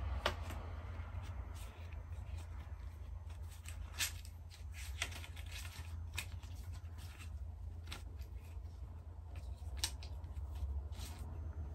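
Paper leaflet rustling and crinkling as it is handled and folded, with scattered sharp crackles every second or so.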